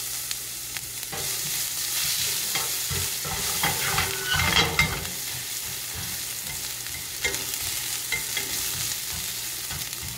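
Fenugreek and fennel seeds crackling and sizzling in hot oil in a pan, the crackle that shows the oil is hot enough for the grated ginger, with a spoon stirring and scraping the pan. The stirring is busiest and loudest about three to five seconds in.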